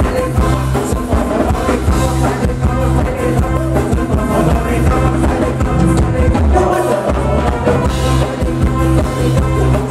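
Live band music played loud through a PA: a male singer on microphone over electric guitar and drum kit, a Phetchaburi ramwong dance song.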